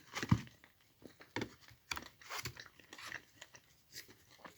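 A person chewing and crunching a mouthful of milk chocolate Easter egg, with irregular crisp crunches, the loudest about a third of a second in.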